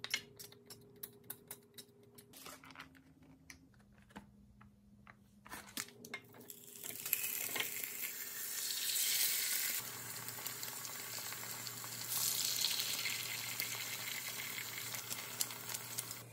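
Oil sprayer clicking and misting oil into a four-cup nonstick egg pan, then shrimp burger patties and eggs sizzling as they fry in the hot oil. The sizzle starts about six seconds in and grows louder again about twelve seconds in.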